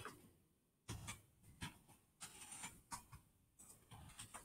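Faint, irregular clicks of computer mouse and keyboard use, with near silence between them.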